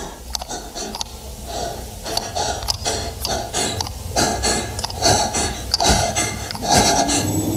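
A person's quick, heavy breathing in short puffs about once a second, growing louder toward the end, with small clicks among the breaths.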